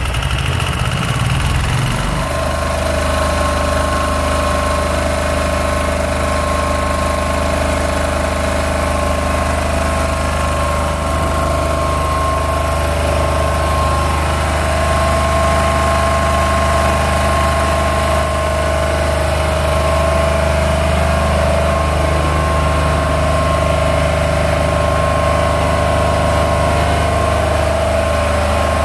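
Very old 6 kW diesel generator set running just after starting: it settles about two seconds in, then runs at a steady speed, an even low drone with a steady whine above it.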